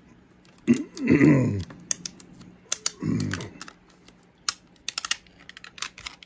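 Fingernails picking and scraping at the security sticker on a plastic DVD case: an irregular run of small sharp clicks and ticks. Two brief bits of voice come about a second and three seconds in.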